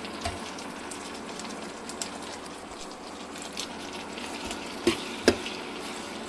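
Chopped tomatoes and onions sizzling in hot oil in a metal frying pan, with two sharp knocks of a metal ladle against the pan about five seconds in.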